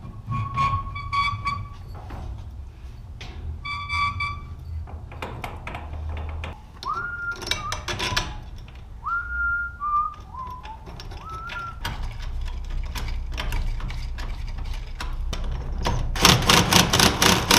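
A man whistling a few short notes, some sliding up and some stepping down, among scattered clicks of hardware being handled. About two seconds from the end, a DeWalt cordless driver runs in fast, even pulses at the spring's bracket, the loudest sound here.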